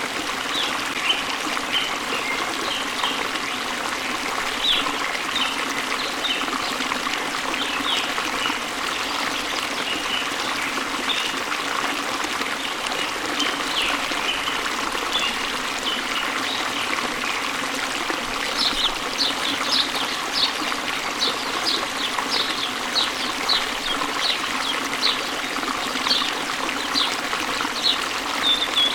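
Steady splashing and flowing of a waterfall into a stream, with birds chirping over it. About two-thirds of the way through, a bird starts a long run of sharp chirps repeated about twice a second.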